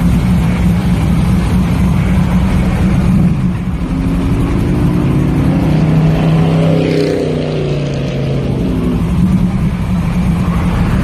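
Box Chevy Caprice engine running loud and steady; in the middle its pitch climbs over a few seconds and then falls back.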